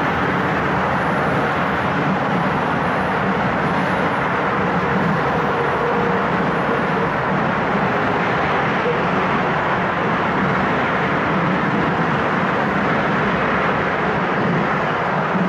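Long intermodal freight train rolling past at steady speed: a continuous rumble of wagon wheels on the rails, mixed with road traffic.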